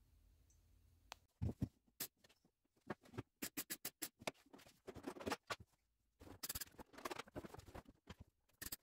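MIG welder crackling on thin car-body sheet steel, laid down in short tacks and bursts: irregular sharp pops starting about a second in, with a longer, denser run of crackling near the end.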